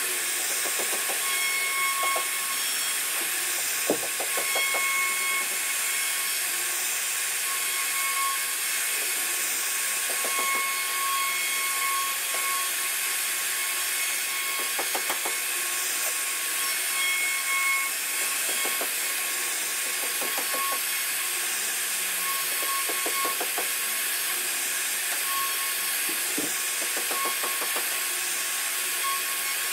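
CNC router spindle running at high speed while its bit carves a relief pattern into a wooden panel: a steady high hiss with a whine that comes and goes, and short rasps now and then as the cutter bites into the wood. A single sharp click about four seconds in.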